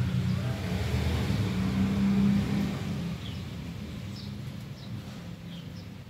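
A low background rumble that fades away about halfway through, with a few faint, short high chirps in the second half.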